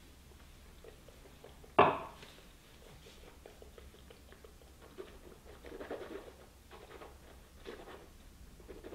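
A stemmed glass tasting glass set down on the tabletop: one sharp knock about two seconds in. After it, only faint soft mouth sounds as the whisky is held and tasted.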